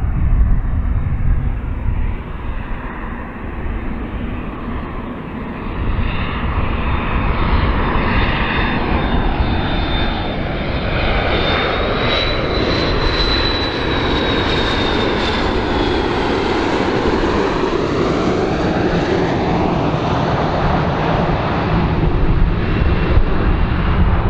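McDonnell Douglas MD-82 airliner's rear-mounted turbofan engines on landing approach: a steady jet roar with a high whine that grows as it passes close, then drops in pitch as it moves away.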